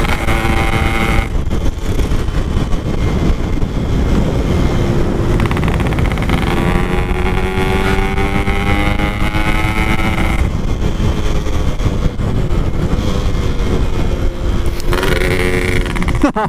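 Yamaha RX-King 135cc two-stroke motorcycle running on the road through a standard-shape 'Packing Power' exhaust, its engine pitch rising and falling as the throttle changes, with heavy wind rumble on the microphone.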